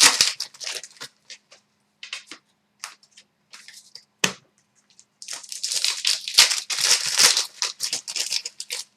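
Trading cards and their foil pack wrapper being handled: scattered short rustles and a click, then a denser crinkling rustle for the last few seconds.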